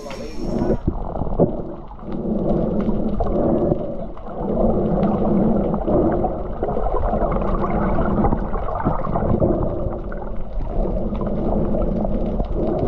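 Muffled underwater sound picked up by a submerged camera: a low, wavering drone that swells and fades every couple of seconds, with faint scattered clicks.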